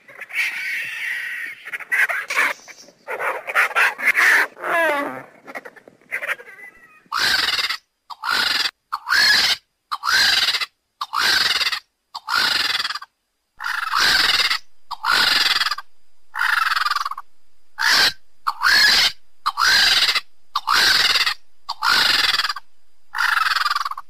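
Vulture calls: a few irregular cries that glide in pitch, then, from about seven seconds in, a regular run of short calls about one a second, each dropping in pitch.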